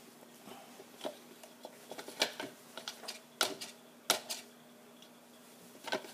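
Irregular light clicks and knocks of kitchen tools on a work table as bread dough is divided into one-pound portions, over a steady low hum. The clicks thin out after about four and a half seconds.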